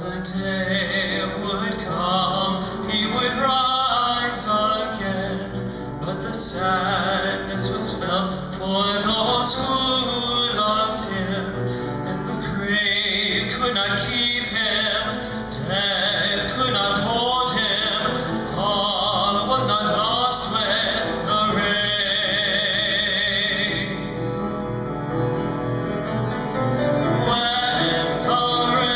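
A song: a solo voice singing a slow, lyrical melody over instrumental accompaniment.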